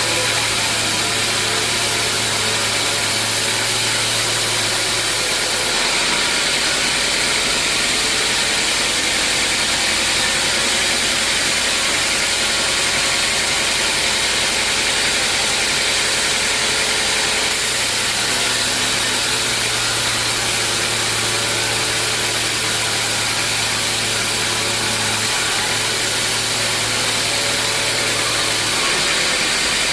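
Sawmill machinery running steadily, a loud constant noise over a low hum, which changes character slightly about six seconds in and again past halfway.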